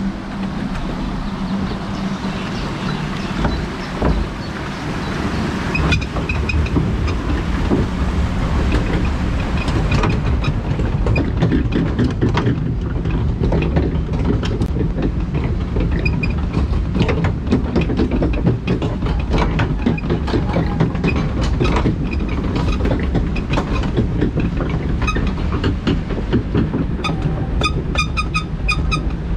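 Log flume boat on its ride track: a continuous rumble thick with rapid mechanical clattering clicks, like a boat being hauled along by the ride's lift mechanism. Near the end a quick, evenly repeating high chirp joins in.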